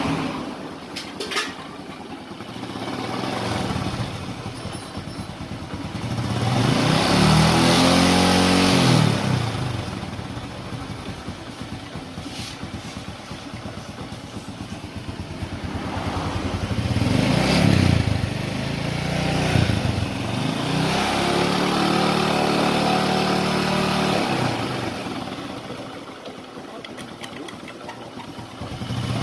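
Honda Supra X 125's single-cylinder four-stroke engine idling and being revved up several times. It runs smoothly, without the metal-on-metal grinding from the clutch case, which the mechanic traced to a worn bearing that has now been replaced.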